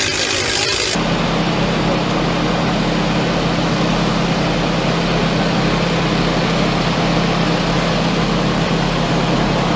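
An engine running steadily with a constant low hum. The sound changes abruptly about a second in, where the footage seems to cut.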